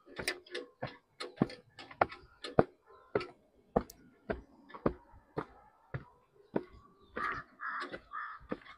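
Footsteps climbing stone steps, about two steps a second, shoes scuffing and knocking on the stone. Near the end a crow caws three times.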